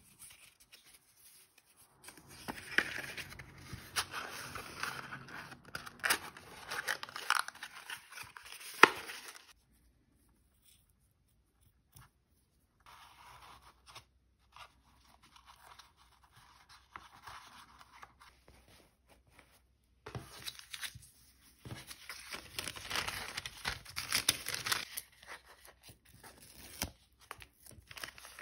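Kraft cardboard and paper being handled. A cardboard pillow box rustles and clicks sharply as it is folded, then there is a quiet stretch while a ribbon is tied round it. Near the end a brown paper bag crinkles as it is opened and handled.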